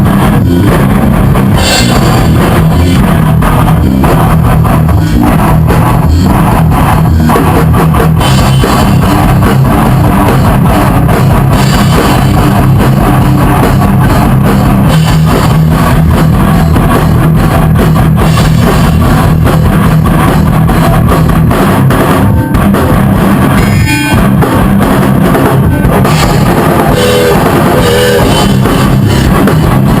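Loud rock band playing: a drum kit with bass drum and cymbals pounding under electric guitars.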